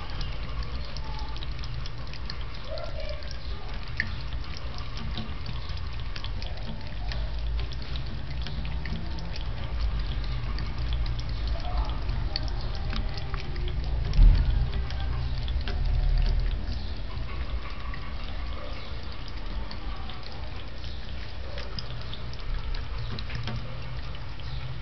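Kitchen tap running in a thin stream into a metal sink while a cat laps at the water from the spout, with small ticking drips and licks throughout. A single dull thump about halfway through.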